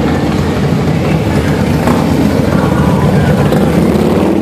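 A line of cruiser motorcycles riding slowly past close by, their engines running loud and steady as one continuous low sound.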